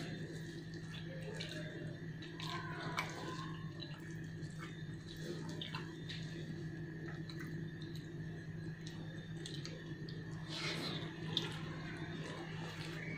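Eating by hand: fingers mixing rice and rendang curry on a metal plate, with small clicks and chewing and mouth sounds, over a steady low background hum.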